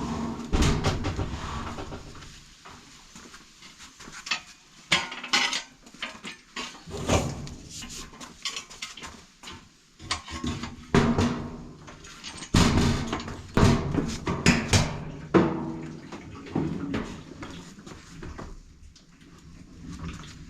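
Clanking, knocking and rattling of hard metal objects being handled and moved, in irregular clusters of knocks with a few loud bangs.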